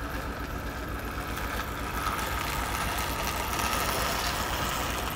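A motor running steadily, a hum with a whine over it.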